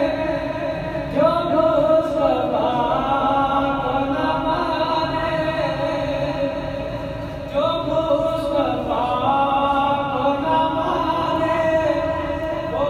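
A man singing an Urdu naat, a devotional chant, into a microphone in long, held melodic phrases. New phrases begin about a second in and again about halfway through.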